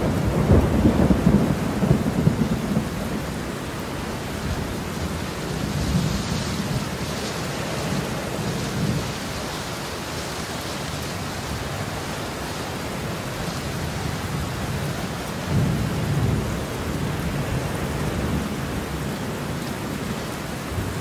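Thunderstorm: steady rain with rolling thunder, the rumbles heaviest in the first few seconds and again about fifteen seconds in.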